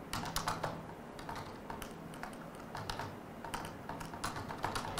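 Typing on a laptop keyboard: a run of irregular key clicks.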